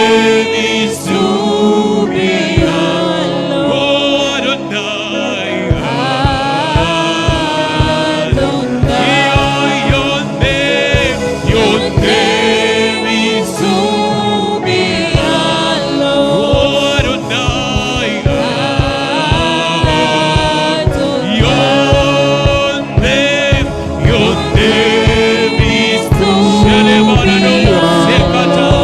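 Gospel worship music: voices singing a worship song over instrumental backing, with a steady beat coming in about six seconds in.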